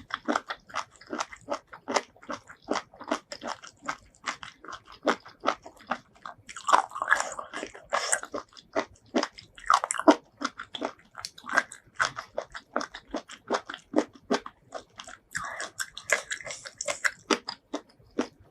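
Close-miked chewing and biting of seafood: a quick, uneven run of wet clicks and crunches, two or three a second, with a few longer smeary mouth sounds in between.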